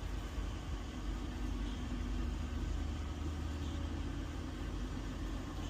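Steady low rumble and hum, without change.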